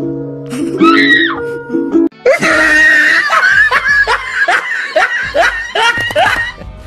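Music for about two seconds, then a man laughing loudly in repeated falling bursts over the music.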